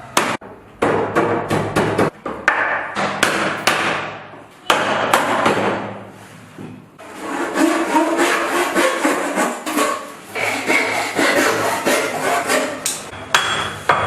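Irregular knocking and clattering of tools against wood, with a short lull about halfway through and denser clatter after it.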